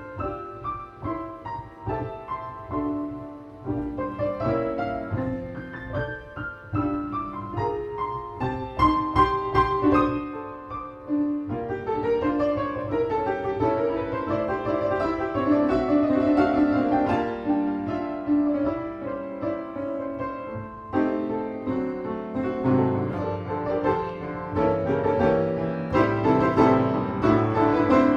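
Solo piano playing a classical piece in chords and runs over a bass line, the loudness swelling and easing several times.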